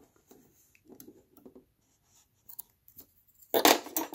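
Scissors and hands at work cutting the sewn fabric piece free of its threads: light scattered snips, rubs and rustles, then a louder rustling scrape about three and a half seconds in.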